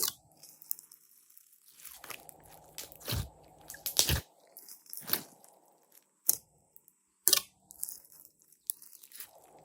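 Slime being squeezed and pressed by hand, giving sharp crunching pops and crackles at irregular intervals of about a second.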